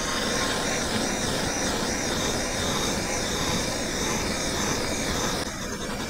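Handheld gas torch burning steadily as its flame is passed over a plastic pistol brace to flame-treat it. The sound eases a little near the end.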